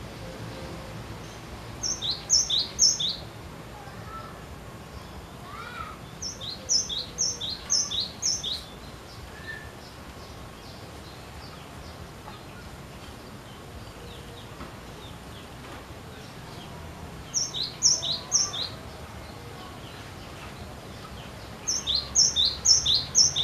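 Cinereous tit (glatik batu) singing its two-note song: four bouts of three to five quick high-then-lower note pairs, separated by pauses of several seconds, over faint steady background noise.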